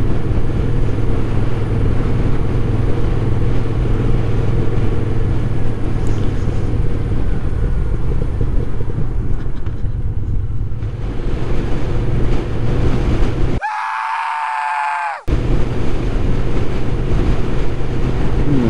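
Moto Guzzi V7's air-cooled transverse V-twin running under way, with steady wind and road noise on the rider's microphone. About two-thirds through, the riding noise cuts out for about a second and a half while a short, high-pitched, slightly falling tone plays on its own.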